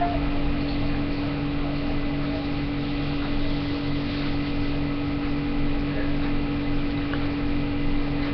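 A steady mechanical hum: a constant low drone over an even hiss, with a few faint ticks.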